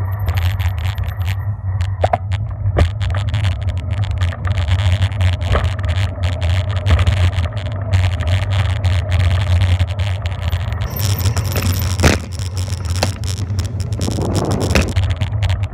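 Bicycle ride heard from a bike-mounted camera: wind rumbling steadily on the microphone, with repeated clicks and knocks as the bike and mount jolt over the road surface. A louder hiss and a sharp knock come about eleven to twelve seconds in.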